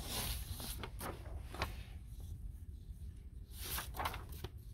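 Paper sheets rustling and sliding as forms are pulled from a wooden literature rack and handled, in a few short brushes: one at the start, one about a second and a half in, and a longer one near the end.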